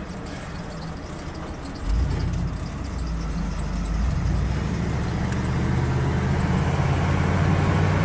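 Pickup truck's engine and road noise heard from inside the cab, jumping in level about two seconds in as the truck pulls away and gathers speed, the engine note then holding strong and building.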